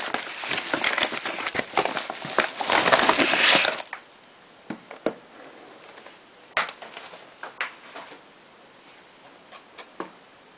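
Padded mailer envelope crinkling and crackling as it is torn open and the contents are pulled out, for about the first four seconds; then scattered light taps and knocks as the cardboard box inside is handled.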